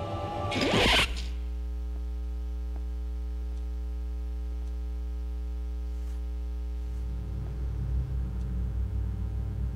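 A sharp, loud snort of a line of powder about half a second in, followed by a steady low hum; from about seven seconds in, a low uneven rumble takes over.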